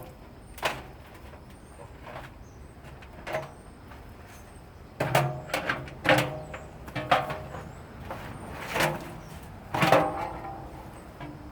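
Scattered knocks and clanks of a socket wrench working on a washing machine's stuck stainless-steel bolt, some with a brief metallic ring. A couple of single knocks come first, and the knocks come thicker from about halfway through.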